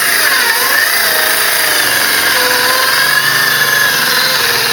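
Cordless DeWalt circular saw cutting through 3/4-inch plywood, its motor whine dipping and rising in pitch as the blade works through the cut. The battery is nearly flat.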